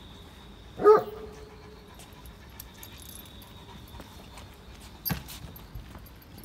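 A Great Pyrenees gives one loud bark about a second in. A sharp knock follows a little after five seconds.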